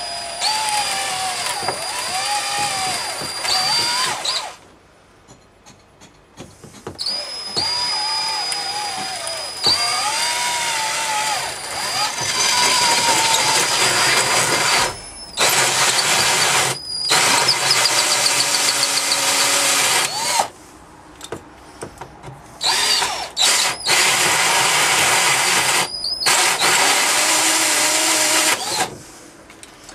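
Power drill running a one-inch hole saw, cutting holes in the boat's helm panel. It runs in about four stretches of a few seconds each, with short pauses between, its motor whine rising and falling with speed.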